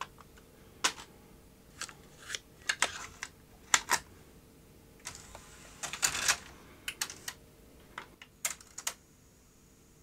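Plastic clicks and clatter of a compact cassette being put into a Philips DCC900 Digital Compact Cassette deck's cassette tray and the tray closing into the mechanism. It is an irregular string of sharp clicks with a short rattling rush a little past the middle, and it settles to quiet near the end.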